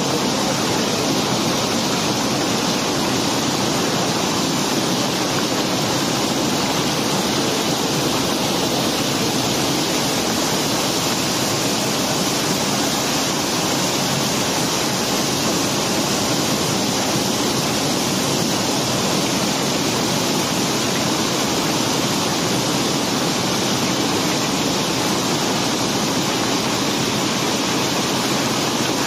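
A mass of gravel and cobblestones sliding and pouring off a barge, making a steady, even rush of noise with no single knocks standing out.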